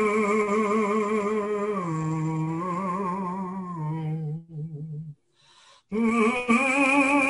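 A man humming long, wordless held notes with a wavering vibrato. The pitch steps down about two seconds in, the tone fades and breaks off briefly near five seconds, then resumes on the higher note.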